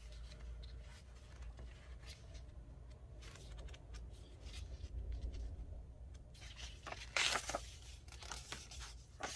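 Paper being handled and shuffled: soft rustles, crinkles and light taps, with a louder rustle about seven seconds in.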